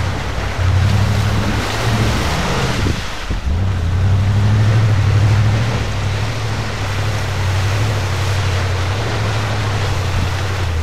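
Jeep Wagoneer engine running hard under load as the truck churns through an ice-covered water pool, breaking the ice. The revs dip briefly about three seconds in and then pull again, over a steady hiss of water and slush thrown up by the wheels.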